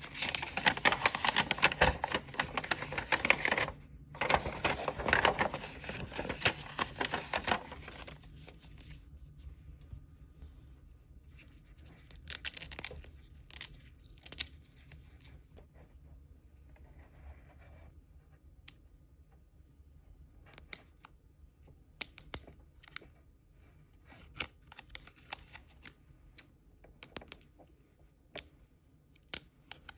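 Packaging being torn open and crinkled for about eight seconds, with a short pause partway through. Then come scattered light clicks, taps and brief rustles as the box and its contents are handled.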